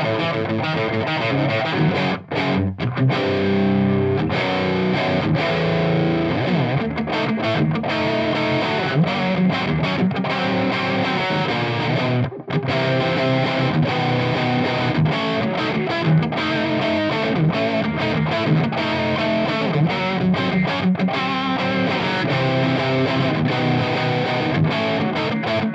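Electric guitar played through a cranked 100-watt Marshall JCM800 tube head: a Les Paul plugged straight in with no effects, giving heavily distorted riffing. The playing stops briefly twice, about two seconds in and about twelve seconds in.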